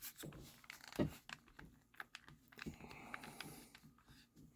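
Faint handling noises: scattered light clicks and taps with a soft knock about a second in and some light rustling near the middle.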